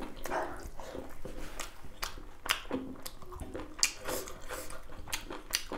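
A person chewing beef innards, with irregular short clicks from the mouth a few times a second.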